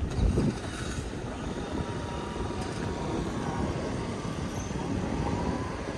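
Vehicle driving slowly along a city street, a steady low rumble of engine and road noise with faint street ambience.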